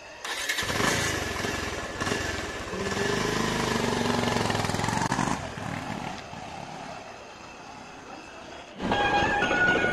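Motorcycle engine starting and revving as the bike pulls away, then running more quietly. Music cuts in suddenly near the end.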